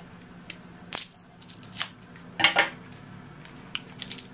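Plastic wrapping on an ink cartridge crinkling and tearing as it is unwrapped by hand, with a few snips and clicks and one louder rustle about two and a half seconds in, over a faint steady low hum.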